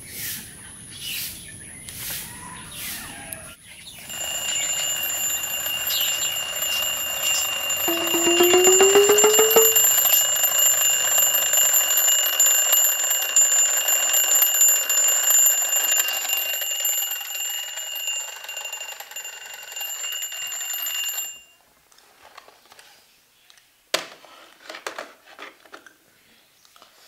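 Alarm clock ringing steadily with a shrill, high ring for about seventeen seconds, then cutting off suddenly. A single sharp click follows a few seconds later.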